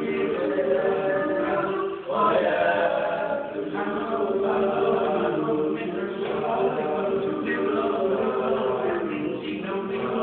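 Choir singing sustained chords, with a short break about two seconds in before a new phrase begins.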